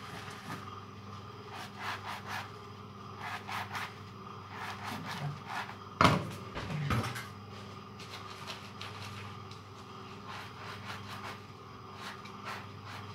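Sponge with a scouring pad scrubbed hard over a stainless steel sink in repeated rubbing strokes. A single sharp knock about six seconds in is the loudest sound.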